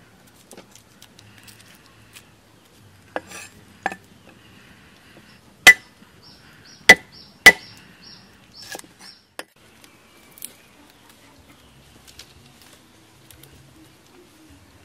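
Cleaver chopping on a thick wooden chopping block: a couple of knocks about three seconds in, three loud sharp chops around the middle, then a few lighter taps.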